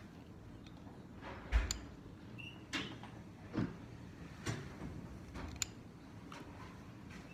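Gua sha scraping tool drawn across the skin and hair at the temple and forehead, a short rubbing stroke about once a second, with a low bump about one and a half seconds in.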